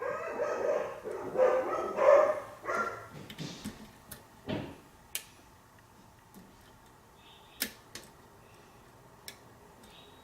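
A pitched, voice-like sound wavering up and down for about the first three and a half seconds. After it come a few sharp, isolated clicks from lock-picking tools in a pin-tumbler lock.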